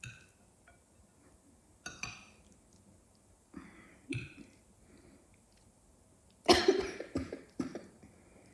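Fork clinking and scraping in a glass bowl of dry noodles as they are mixed, then a loud cough about six and a half seconds in, followed by two smaller coughs.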